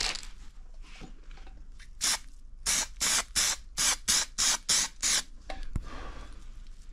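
1K grey primer spraying from a SprayMax aerosol can in about eight short hissing bursts in quick succession, the primer going on in light dusting passes.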